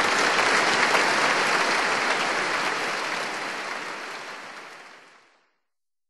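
Audience applauding, the clapping fading out over the last couple of seconds and ending in silence about five and a half seconds in.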